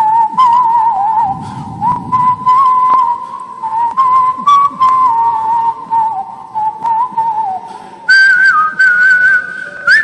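A man whistling a melody into a microphone: one clear tone with quick warbling ornaments around a single pitch, jumping to a higher note about eight seconds in.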